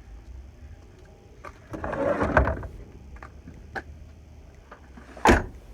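A junked car's metal door being worked open with a scraping rattle for about a second, then one sharp bang near the end.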